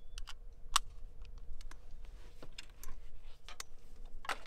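Scattered light clicks and taps of 5.56 cartridges being loaded into a rifle magazine, with a quick cluster of clicks near the end as the AR-15-style rifle is handled.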